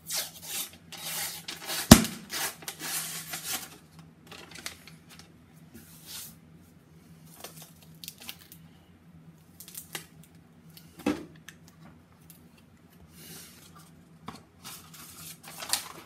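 Paper label tearing off a refrigerated crescent roll dough can, then a single sharp pop about two seconds in as the can bursts open along its seam. Quieter rustling follows as the cardboard tube is peeled away from the dough.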